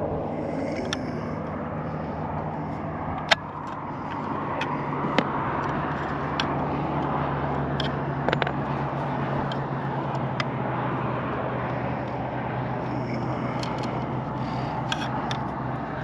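A steady engine-like hum with wind noise on the microphone, and scattered sharp clicks and taps of hands working on parts.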